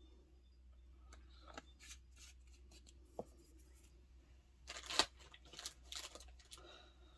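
Small handling noises of resin-crafting supplies: scattered light clicks and taps, then a cluster of rustling and scraping about five seconds in.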